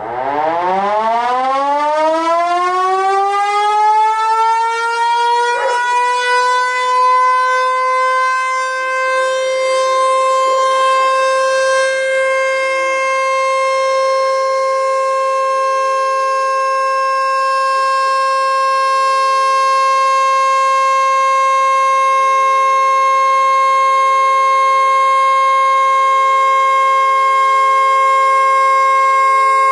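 Vixen VXS2245AR (Lion King JDW245) dual-rotor motor-driven siren spinning up. Its tone rises steadily over about eight seconds, then holds a steady high wail.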